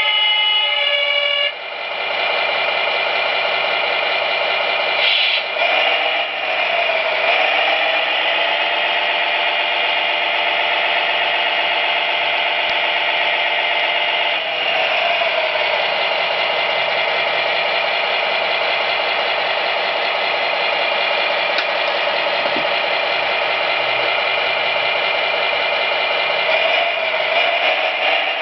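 Electronic sound card playing an MAN TGA straight-six diesel truck engine through an RC truck's small speaker. A horn sounds briefly at first, then the simulated engine runs and revs up about five seconds in, drops back to idle around fifteen seconds, and revs again near the end.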